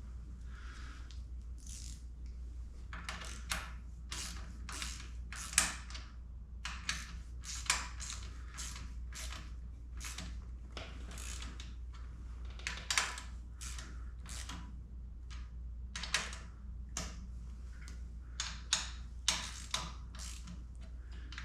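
Ratchet wrench clicking in short, irregular runs as handlebar clamp bolts are tightened a little at a time to keep the clamp gap even. A steady low hum runs underneath.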